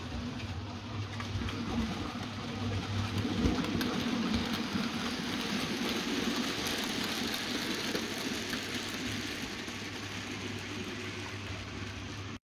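OO gauge model goods train running through: the locomotive's electric motor humming and its wheels running on the track. It grows louder toward the middle and then eases as it passes, and cuts off suddenly at the end.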